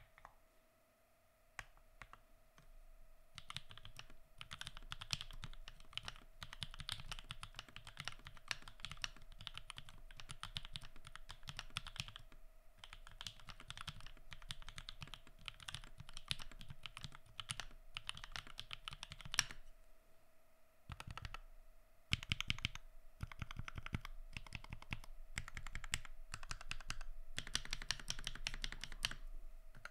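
Typing on a custom Mysterium mechanical keyboard with lubed 67g Tangerine linear switches, switch films and GMK Dots keycaps: fast runs of key presses, starting sparse and filling in after a few seconds, with two short pauses, the later strokes louder.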